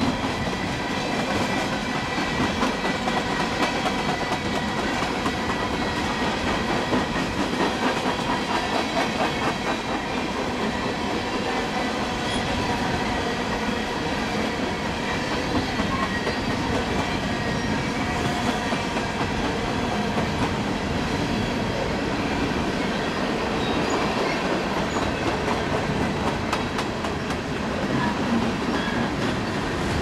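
Empty open-top coal hopper cars of a freight train rolling past, their wheels clicking and clacking over the rail joints in a steady stream.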